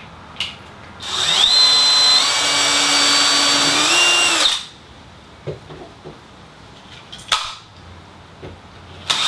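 Cordless drill boring a small test hole up into a garage ceiling to probe for the wooden joist, its motor whine stepping up in pitch through a run of about three and a half seconds. A short click follows in the pause, and the drill starts again near the end.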